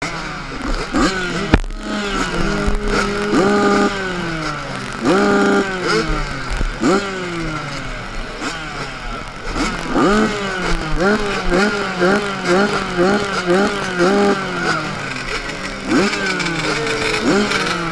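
Several motocross bikes revving on the start line, throttles blipped up and down over and over, overlapping, with a fast run of blips about ten seconds in. A single sharp knock about one and a half seconds in.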